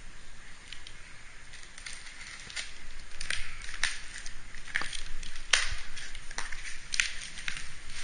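A cardboard parts box being cut open with a utility knife and its lid worked loose: irregular sharp clicks, scrapes and crackles of blade and cardboard, getting busier about three seconds in.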